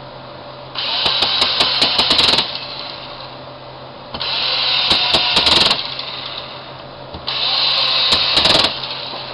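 A small power driver runs in three short bursts of about a second and a half each, whirring with sharp clicks, as screws are tightened into the die grinder's plastic housing.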